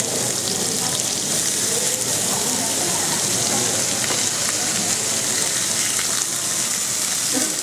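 Marbled beef steaks sizzling steadily on a hot ridged grill pan.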